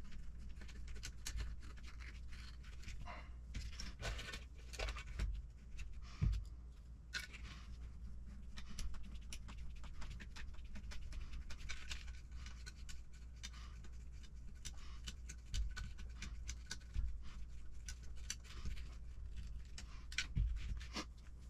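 Faint, irregular clicks and scrapes of a hex driver turning small M3 screws into plastic RC truck suspension parts, and of the parts and tools being handled.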